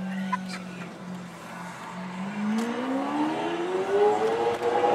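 Lamborghini Aventador Roadster's V12 engine, heard from inside a following car: a steady low note for about two seconds, then the revs climb smoothly and the sound grows louder as the car accelerates.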